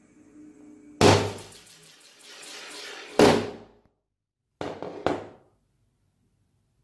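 A hammer strikes a spinning metal fidget spinner on a tabletop: the spinner's faint whir stops at a loud hit about a second in and it clatters away across the table. A second heavy hit follows about two seconds later, then two quicker knocks about half a second apart.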